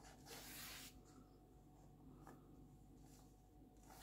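Paper page of a colouring book being turned: one soft swish of paper about half a second in, then faint rustling and a light tap.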